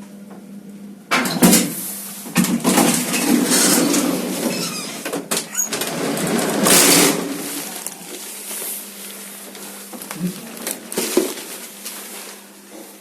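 Old passenger lift's doors and mechanism clattering and banging: a sudden loud bang about a second in, then rattling knocks and a louder clattering spell in the middle, over a steady low hum.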